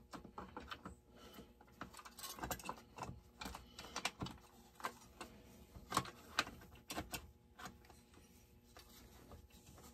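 Irregular light metallic clicks and taps of hand tools and parts as a RedMax GZ360 chainsaw's muffler cover is worked loose, busiest in the middle and thinning out near the end.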